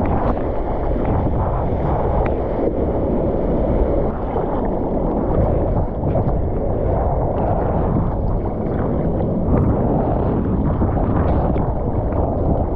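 Seawater rushing and splashing against a surfboard and a waterproof action camera, with wind buffeting the microphone, as the board rides through whitewater and then is paddled through chop.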